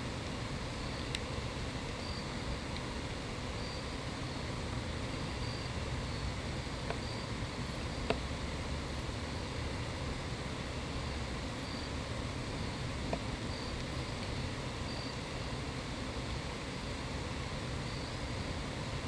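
Steady outdoor background rumble and hiss with faint, repeated high insect chirps scattered through it, and a few soft isolated clicks.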